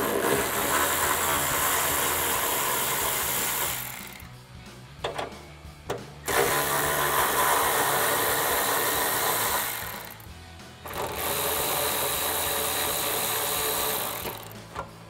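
Cordless power ratchet with a 10 mm socket running to back off the spoiler's mounting nuts: three runs of a few seconds each, the first two about four seconds long and the last about three, with short pauses and a few clicks between them.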